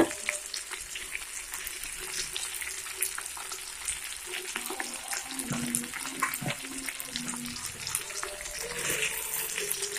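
Stuffed brinjals in onion-tomato masala frying in oil in a pan: a steady sizzle with many small crackles.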